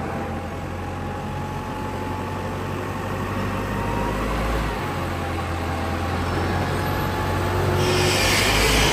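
Heli forklift engine running steadily under load, a low hum with a faint thin whine over it. A hiss comes in near the end.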